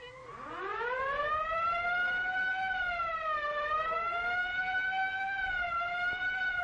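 A long siren-like wail: it climbs from low over about the first second, holds with a slow wavering in pitch, and begins to slide down near the end.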